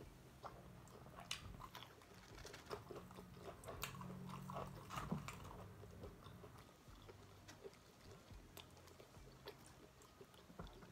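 Faint close-up eating of fried chicken wings: wet mouth clicks, chewing and small crunches of the fried skin, coming in scattered short bursts.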